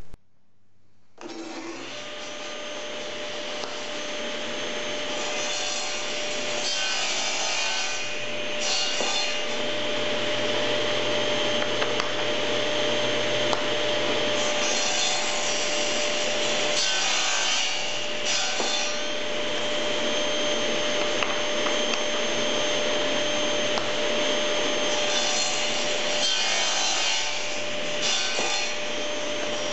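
Table saw starting up about a second in and running steadily with a constant whine. The blade cuts through small lignum vitae segments pushed on a crosscut sled, and each cut comes as a louder stretch every few seconds, several in all.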